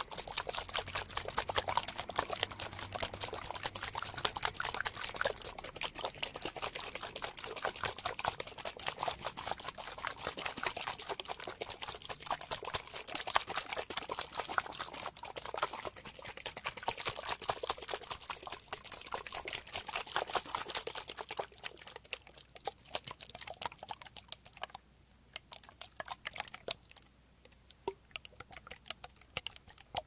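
A small plastic soy-sauce pump spray bottle filled with water, sprayed quickly again and again: sharp pump clicks, each with a short hiss of mist. After about twenty seconds the sprays thin out to scattered clicks.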